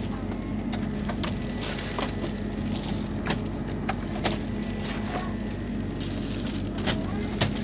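Steady low electrical hum of a refrigerated supermarket display case, with scattered sharp clicks and taps; the loudest click comes near the end.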